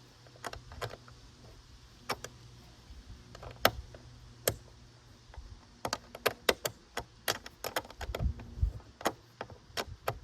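Irregular sharp metallic clicks and clinks of a hand tool working the seat-bracket screws and lock nuts as they are tightened from underneath, coming more often in the second half.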